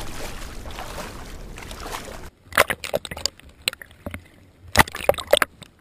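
Steady wind and surf noise in the shallows, then, a little over two seconds in, a change to water splashing and sloshing close against a half-submerged camera, in a run of sharp, loud splashes.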